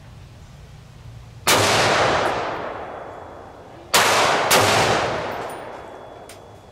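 Three gunshots at a shooting range: one, then about two and a half seconds later two more, half a second apart. Each is a sharp crack that rings out and fades over a couple of seconds.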